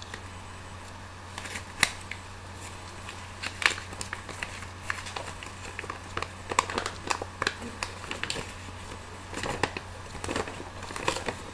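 Paper instruction manual and its packaging being pulled out and unfolded: scattered crinkles, rustles and small snaps of paper, over a steady low hum.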